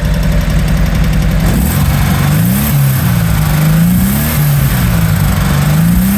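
Rebuilt air-cooled Porsche 356A flat-four engine running on a stand, steady at first, then revved up and back down about three times in the second half.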